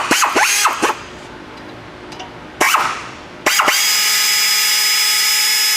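A power tool's motor runs at a steady speed for about two seconds in the second half, then stops abruptly. A dog barks a few short times at the start.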